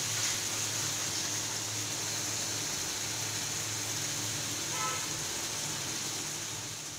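Chopped onions, tomatoes, garlic and green chillies sizzling steadily in oil in a pan over a high gas flame, with a low steady hum underneath.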